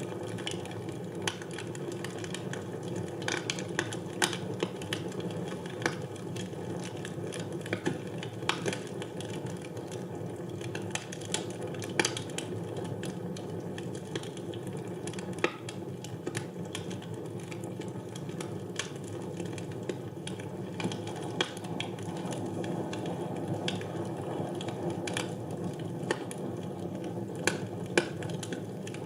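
Wood fire burning in a fireplace: a steady low rush of flame with irregular sharp crackles and pops from the burning logs.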